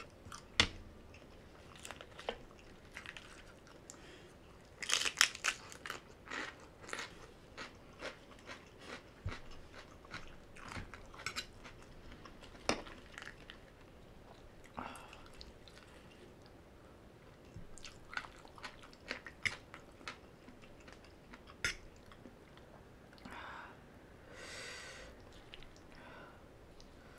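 Close-miked chewing and crunching of crisp food, most likely forkfuls of shredded green papaya salad. The loudest crisp bites are clustered around five seconds in, then come softer, sparser chewing clicks, and a short mouth sound near the end.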